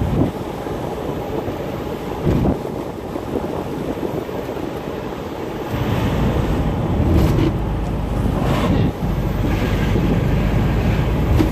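Wind noise on the microphone and road noise of a moving car heard from inside the cabin, a steady low-pitched rush that swells in gusts a few times.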